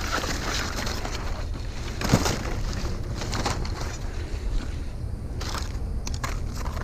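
Scattered knocks and rustling of scrap and debris being handled, with one sharper knock about two seconds in, over a steady low rumble.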